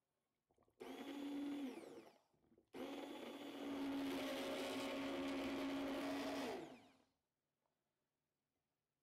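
Hand-held immersion blender puréeing cooked strawberries in a glass jug: a short run of about a second, then a longer run of about four seconds, its motor winding down after each.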